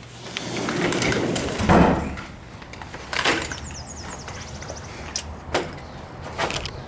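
Sliding patio door rolling open along its track, ending in a loud knock about two seconds in, followed by scattered clicks and knocks.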